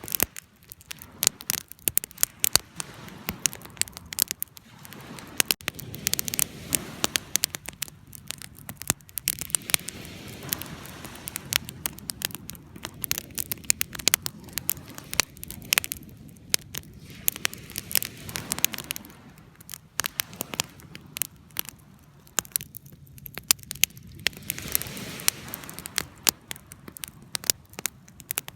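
Fire burning with frequent sharp, irregular crackles and pops over a low rushing hiss of flame.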